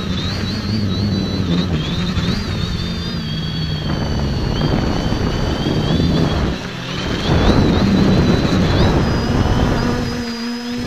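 Quadcopter's brushless motors and propellers, heard from a camera mounted on the craft in flight: a high motor whine that wavers in pitch as the throttle changes, over a low propeller hum and rushing air noise that grows louder about seven to nine seconds in.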